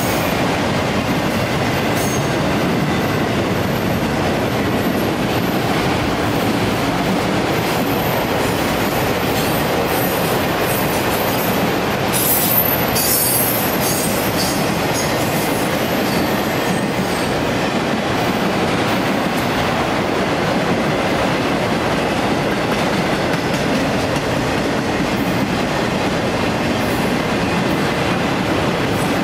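Railroad cars rolling past at close range: a steady rumble of steel wheels on rail. About twelve seconds in comes a short spell of higher-pitched metallic squeal.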